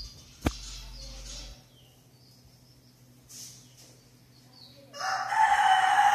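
A rooster crows about five seconds in, the loudest sound, lasting about a second. Before it, budgerigars chirp faintly, and there is one sharp click about half a second in.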